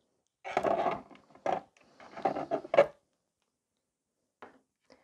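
Knocks and scrapes of a practice nail tip on its stand and tools being handled on a tabletop, as the tip is set in to be cured under the gel lamp; several short scuffs over about two seconds ending in a sharp click, then a couple of faint ticks near the end.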